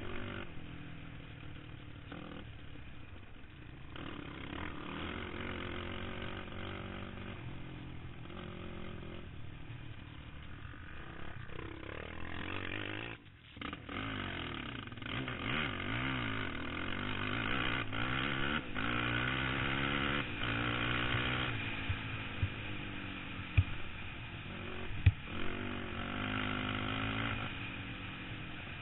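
Sport quad's single-cylinder four-stroke engine at full speed, revving up and down repeatedly as the throttle is worked. Midway the throttle shuts off briefly, and two sharp knocks come near the end.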